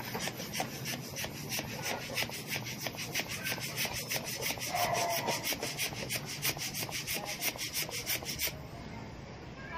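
A fast, even rasping rub, many strokes a second, that stops abruptly about a second before the end.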